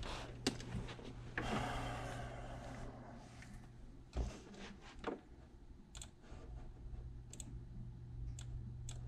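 A computer mouse clicking a handful of times, short sharp clicks about a second apart in the second half, over a steady low hum.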